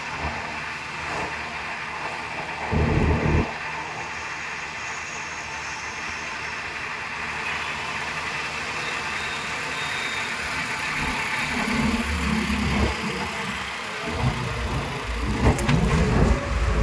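Road traffic heard from a moving open rickshaw: steady road and wind noise with passing motor vehicles. Low rumbles come about three seconds in and again near the end, as a motorcycle passes close by.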